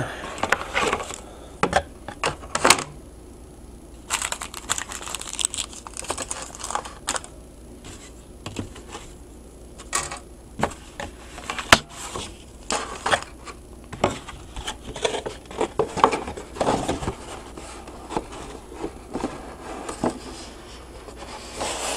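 Plastic bags crinkling and rustling with irregular clicks and taps as a plastic model kit's bagged parts and decals are handled and packed back into the kit box.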